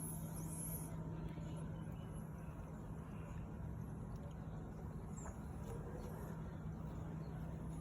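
A sleeping cat snoring, a steady low rasping sound.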